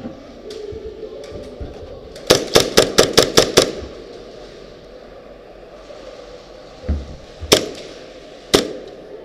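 Airsoft guns firing: a quick string of about eight shots a little over two seconds in, then two single shots about a second apart near the end.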